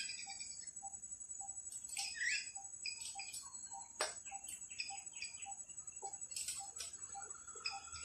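An even ticking, about two low ticks a second, over a steady high-pitched whine, with scattered short chirps and a few sharp taps, the loudest about halfway through.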